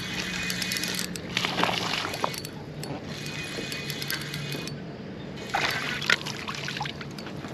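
Water splashing and sloshing in uneven bursts, with a faint steady low hum underneath.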